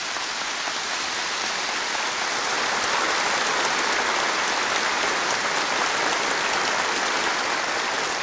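Large audience applauding, a dense steady clapping that builds over the first few seconds and then holds.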